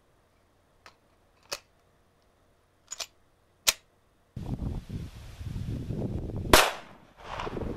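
A few short, sharp clicks, then wind buffeting the microphone and a single loud pistol shot from a CZ 82 in 9x18 Makarov about six and a half seconds in.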